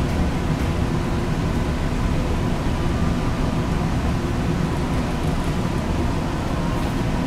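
Steady low rumble of a ferry's engines and onboard machinery, heard from inside the ship, with a faint constant hum running through it.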